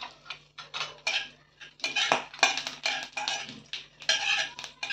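Metal spatula scraping and clinking against a stainless steel kadai in irregular strokes, as whole spices are stirred in hot oil.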